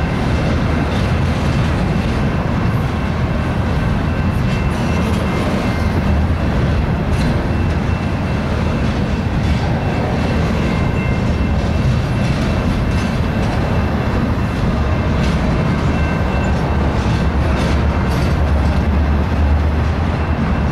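Double-stack intermodal container train rolling past: a steady loud rumble of steel wheels on rail, with scattered clicks and a few faint steady high-pitched ringing tones over it.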